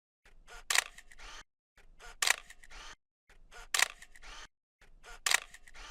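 Camera shutter clicks, four times about a second and a half apart, each a sharp click with a short mechanical tail and identical each time.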